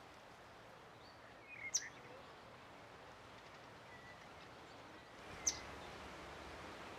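Two sharp, very short high-pitched calls of a common kingfisher, about three and a half seconds apart, over a steady faint outdoor hiss, with a few fainter chirps between them.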